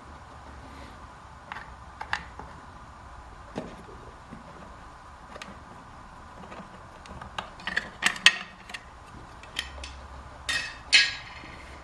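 Scattered metal clicks and clinks of hand tools and bolts as the stock air-cleaner breather bolts are worked loose, with a quick run of clinks about eight seconds in and a short rattle near the end.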